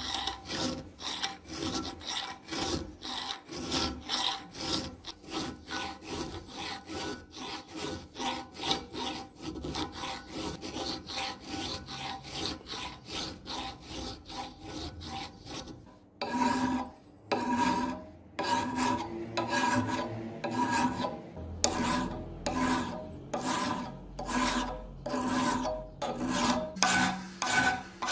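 Hand file rasping over the rusty steel jaw teeth of an 18-inch pipe wrench, in steady back-and-forth strokes about two a second. After a brief pause about two-thirds of the way through, the strokes go on with a faint metallic ring.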